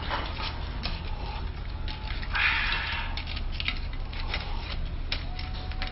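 Tableware in use: scattered light clinks and knocks of a spoon, bowls and glasses, with a brief rush of noise about two and a half seconds in, over a steady low room hum.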